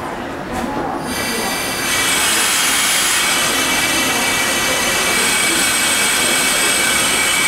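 Shinano Railway 169 series electric multiple unit creeping along the platform at low speed, its wheels squealing. The squeal is a steady, high, many-toned one that starts about a second in and grows louder a second later.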